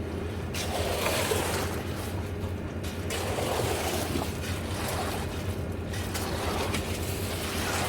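An engine running steadily at constant speed with a low hum, overlaid by a recurring swishing noise about once a second, such as wet concrete churning or being worked.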